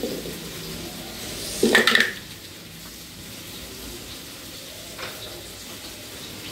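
Vegetables frying in a pan with a faint steady sizzle, broken by a clatter of steel kitchenware about two seconds in and a light click later on.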